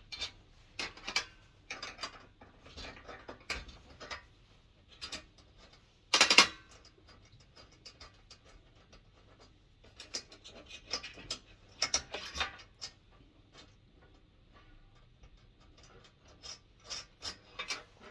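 Scattered clicks and small metallic knocks of hand tools and parts being handled while a diesel heater is dismantled, with one louder clatter about six seconds in.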